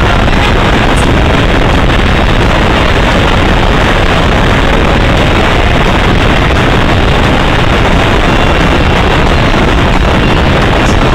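Loud, steady noise of a car on the move, with heavy wind noise on the microphone.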